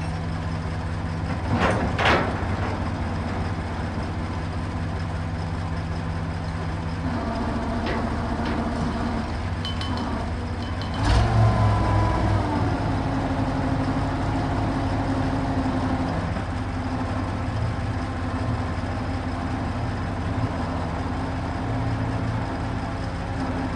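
Truck crane's diesel engine running steadily while it unloads concrete blocks, with sharp clanks twice near two seconds in and again around eight to eleven seconds. About eleven seconds in the engine picks up load and gets louder, then settles back.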